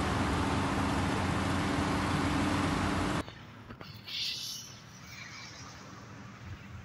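Develon hydraulic excavator's diesel engine running loudly and steadily with a low hum. It cuts off abruptly a little over three seconds in to quieter roadside traffic noise with a brief hiss.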